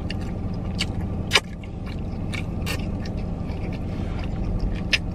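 Eating sounds: a seafood-boil shrimp being peeled by hand and chewed, a scatter of short, sharp clicks and crackles, the sharpest about a second and a half in. A steady low hum runs underneath.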